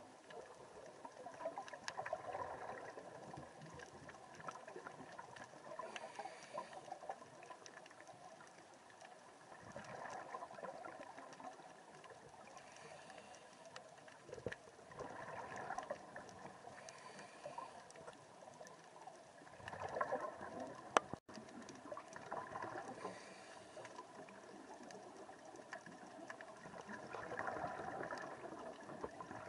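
Scuba regulator exhalation bubbles, heard underwater: a gurgling swell of bubbles every four to five seconds as the diver breathes out. One sharp click about two-thirds of the way through.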